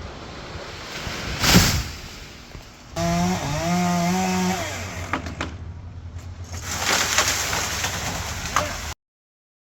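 Chainsaw running, its engine pitch stepping up and down before falling back, with a loud thump about a second and a half in. The sound cuts off suddenly near the end.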